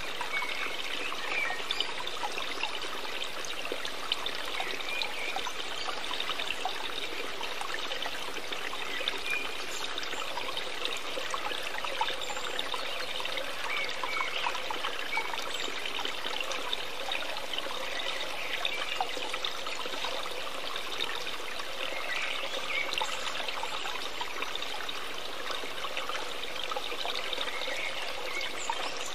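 Steady sound of running water, like a trickling stream.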